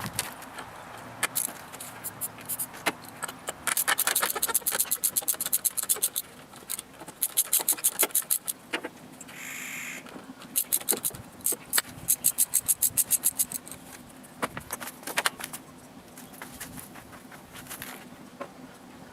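Ratchet wrench clicking in quick runs, several seconds of rapid clicks with pauses between, as fasteners are worked loose. A short hiss about ten seconds in.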